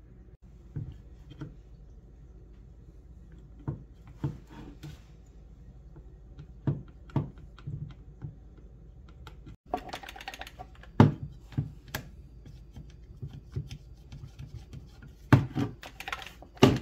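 Irregular clicks, taps and knocks of a screwdriver working the screws of a vintage Rockwell Model 60 jigsaw's housing, and of the saw being handled and turned over on the bench. The knocks come thicker and louder about ten seconds in and again near the end.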